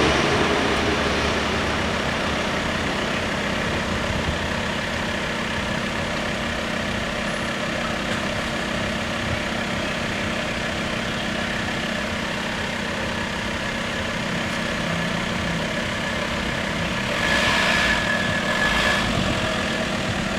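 Motor vehicle engines idling steadily with a low hum, louder for a couple of seconds near the end as traffic moves.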